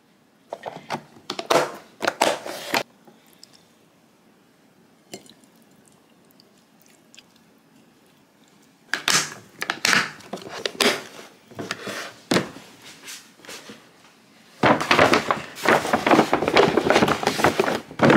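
Hands handling glass food-storage containers, with clusters of clinks and knocks and a lid pressed shut. For the last few seconds a kraft-paper shopping bag rustles continuously.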